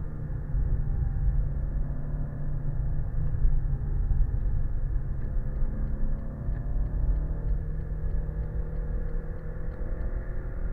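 Renault Clio 3 RS's 2.0-litre four-cylinder engine pulling hard on track, heard from inside the cabin over heavy road and wind rumble. The engine note climbs slowly in the second half as the car accelerates.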